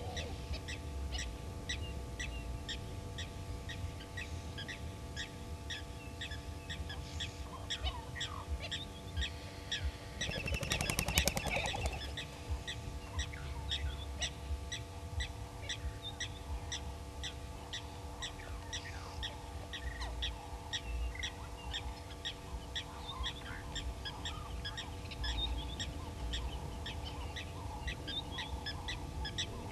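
Bush ambience: a steady series of short high calls, two to three a second, with a louder rattling call about eleven seconds in, over a low rumble.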